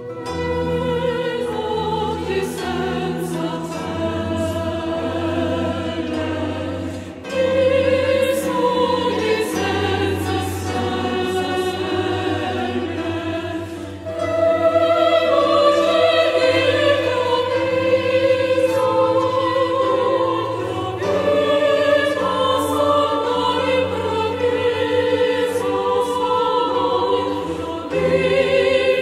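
Choral music: a choir singing slow, sustained phrases over low held notes, growing louder about seven seconds in and again about halfway through.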